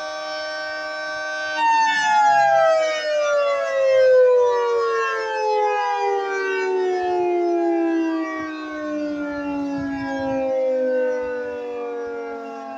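Federal Signal 3T22 three-tone outdoor warning siren sounding a high-pitched chord. About a second and a half in, the pitch starts falling and keeps sliding down, more and more slowly, as the siren winds down.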